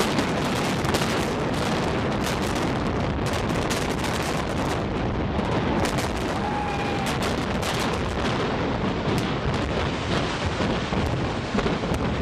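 Building demolition implosion: many sharp cracks from the explosive charges, fired in rapid succession over a continuous heavy rumble of the collapsing structure. The cracks thin out after about five seconds while the rumble goes on.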